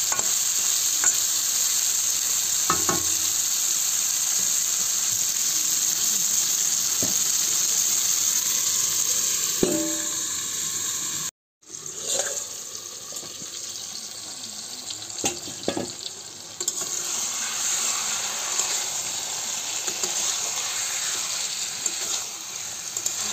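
Chicken and potato curry sizzling in a metal karahi over a gas flame, with a metal spatula knocking and scraping against the pan a few times as it is stirred. The sound cuts out for a moment about halfway through, then the sizzling carries on more quietly.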